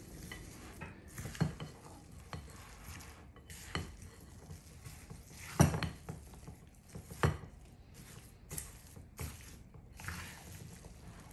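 Silicone spatula folding chopped apples into a stiff, dense batter in a glass mixing bowl: soft scraping and stirring with scattered knocks against the bowl, two of them louder a little past halfway.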